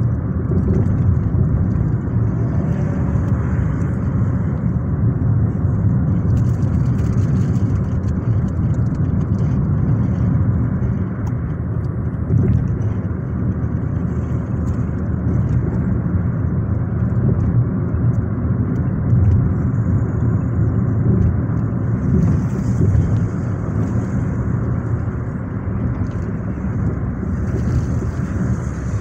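Steady road and engine noise of a car driving at speed, heard from inside the cabin as a continuous low rumble.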